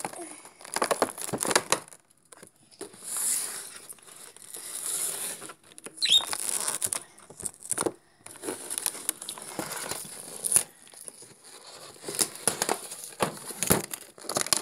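Hands struggling to open a cardboard toy box with a clear plastic window: irregular crinkling and rustling of the plastic, tearing, and knocks of handling, with a short squeak about six seconds in.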